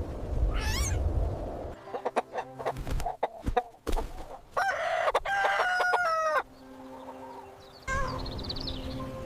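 Chickens: a rooster crows once, a call of about two seconds with steady held tones in the middle, among a run of sharp clicks and knocks and a short squawk near the start.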